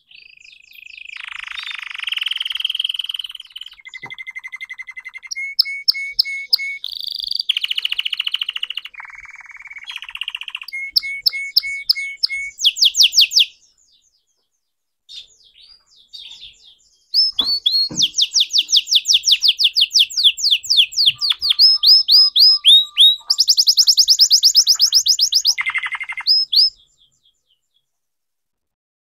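Red canary singing a long, varied song of fast trills, rolling notes and buzzy phrases. It pauses for a few seconds midway, starts again with dense rapid trills and stops near the end.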